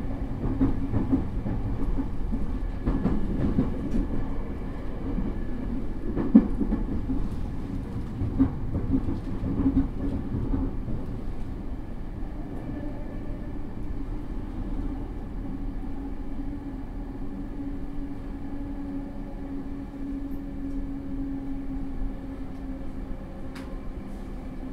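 Running noise of a JR East E231 series commuter train, heard from inside the motor car at speed. For the first ten seconds or so the wheels clatter and click over the track, then the sound settles into steadier rolling with a low steady hum.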